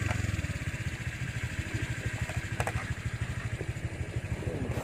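Small motorcycle engine running at low speed with an even, rapid beat, with a single click about two and a half seconds in.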